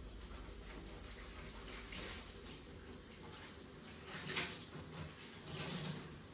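Water splashing in a kitchen sink as gloved hands wash under the tap, in a few short splashes, the loudest a little past four seconds in.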